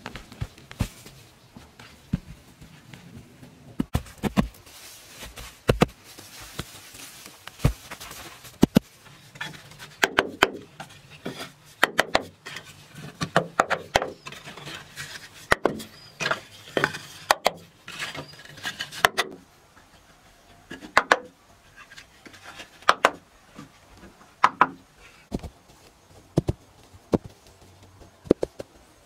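Split bamboo halves knocking and clacking as they are handled and set down in a row, in irregular sharp knocks that come thickest in the middle stretch, with rustling of grass.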